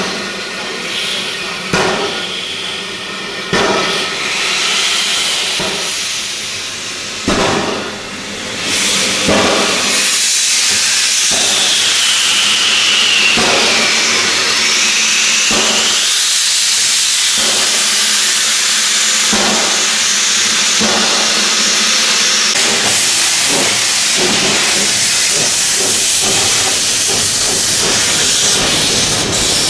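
Small tank steam locomotive hissing steam. A few separate sharp knocks come in the first several seconds; from about nine seconds in a loud, steady hiss of escaping steam takes over.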